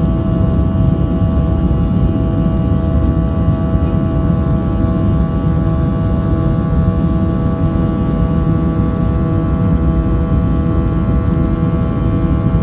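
Boeing 737-800's CFM56-7B turbofan engines running at high takeoff thrust: a loud, even rumble with a steady multi-tone whine over it.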